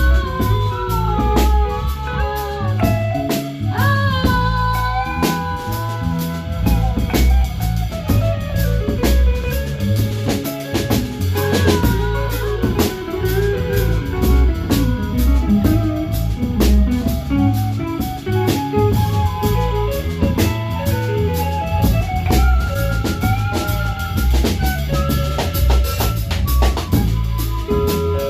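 Live improvised band music: a drum kit keeps a steady beat under a deep bass line, while guitar and a lead melody wander freely over it.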